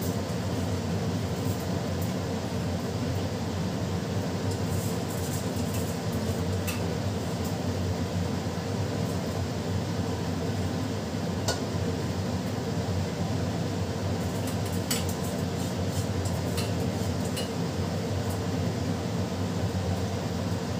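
A fan hums steadily, with a few sharp metallic clinks of a utensil and bowl against a cooking pot as rice is added to it.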